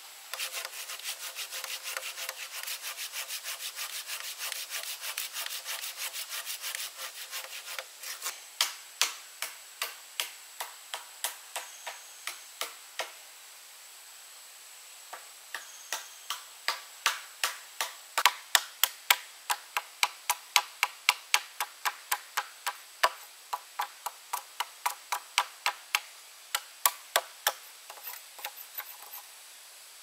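Bamboo being worked with a hand tool in rhythmic strokes. A fast, even run of about six strokes a second comes first, then slower, sharper strokes about two a second, a short pause about halfway, and more strokes until near the end.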